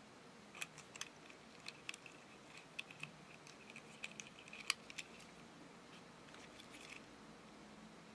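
Steel split key ring being worked onto a key fob: a quick run of small sharp metallic clicks with a faint ring under them, dying away after about five seconds.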